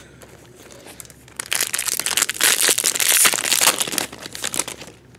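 Baseball card pack wrapper crinkling as it is torn open and peeled off the cards, beginning about a second and a half in and stopping shortly before the end.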